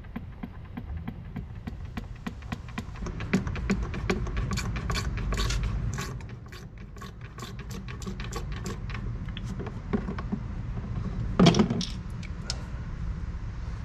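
Hand pump on a gear-oil bottle clicking in rapid, regular strokes as gear oil is pumped up into the boat drive's lower unit through its bottom drain hole. There is a louder clatter near the end.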